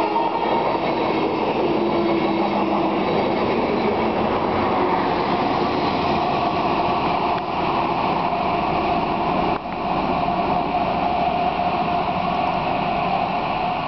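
A 201 Class General Motors diesel-electric locomotive pushing a train of coaches past and drawing away, its 12-cylinder two-stroke engine running under load together with the rumble of the wheels on the rails. A steady whine comes in about halfway through.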